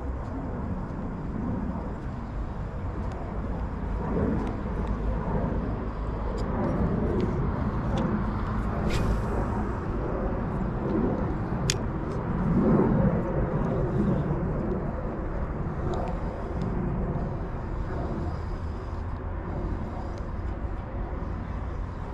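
Steady low outdoor rumble on the microphone that swells a little about twelve seconds in, with two sharp clicks around nine and twelve seconds.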